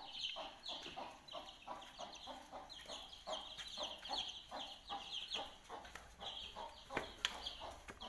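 Poultry calling: a steady run of rapid, high, short chirps with lower clucking notes mixed in.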